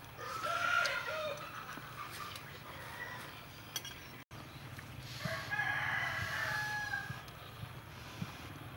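A rooster crowing twice: one crow about a second in and a longer one about five seconds in.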